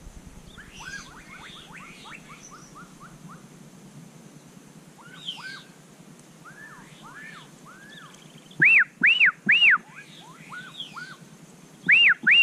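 Birds calling from the riverbank: a run of quick, falling chirps, then two loud groups of three rising-and-falling notes, the first about nine seconds in and the second near the end.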